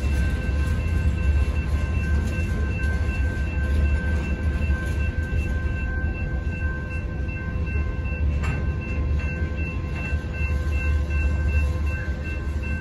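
Freight cars of a manifest train rolling through a grade crossing: a steady low rumble of wheels on rail, with the crossing's warning bell ringing over it. One sharp clank comes about eight and a half seconds in.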